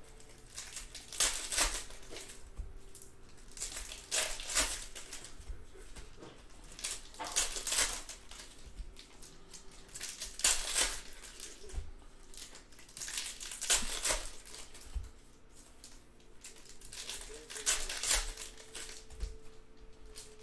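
Plastic-foil trading-card pack wrappers crinkling as they are torn open and handled, in short bursts about every three seconds.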